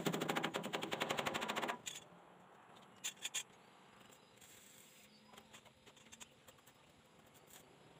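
Handheld electric drill running with a fast, even rattle, which stops about two seconds in. Three short bursts from the drill follow about a second later, then faint clicks of tool handling.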